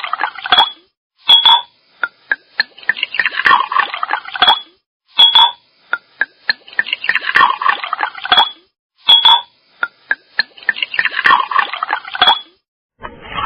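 Ice and water in a glass: a few sharp clinks, then about a second and a half of splashing, then a short ring. The same take repeats three times, about every four seconds.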